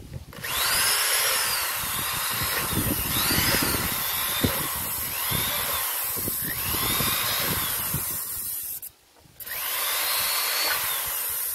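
Corded electric drill boring holes into a plastic jug, its motor whine rising and falling several times as the trigger is worked. It stops briefly about nine seconds in, then runs again.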